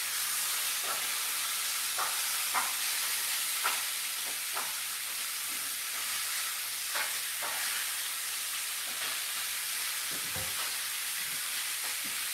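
Food sizzling steadily in a pan on the hob, with a few sharp clinks of a utensil against the pan as it is stirred and a dull knock about ten seconds in.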